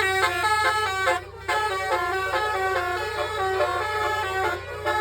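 Basuri multi-tone vehicle air horn (telolet horn) playing a quick melody, the notes stepping up and down several times a second, with a short break a little over a second in. A steady low hum runs underneath.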